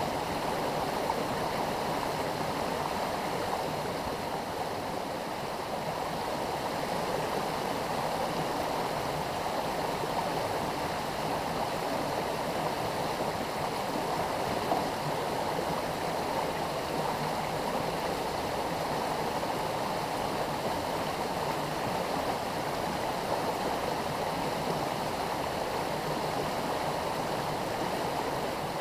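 Mountain stream water rushing steadily over a small rocky cascade.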